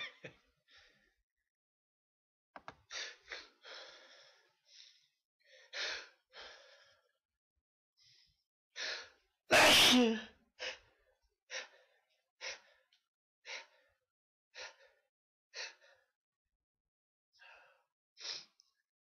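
A person sneezing repeatedly, with short sneezes and sharp gasping breaths in quick separate bursts and silent gaps between them. One much louder, fuller sneeze comes about ten seconds in, followed by a run of short bursts roughly once a second.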